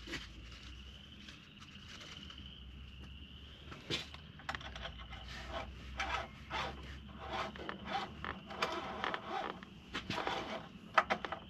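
Light, irregular clicks, scrapes and creaks of hands handling caps and parts in a pickup truck's engine bay, denser from about four seconds in, over a steady high insect trill.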